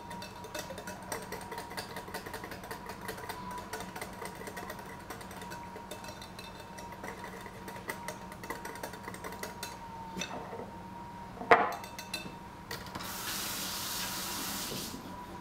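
Wire whisk beating thin pumpkin pie filling in a glass mixing bowl: quick, rapid clinks and scrapes of the wires against the glass. Near the end comes a single sharp knock, then a brief steady hiss.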